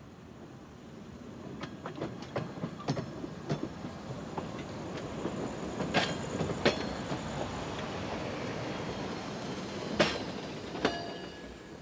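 A Chicago Transit Authority rapid transit car rolling slowly past over a track switch. A rumble grows louder, with sharp wheel clacks over the rail joints and switch. Brief high wheel squeals come about halfway through and again near the end.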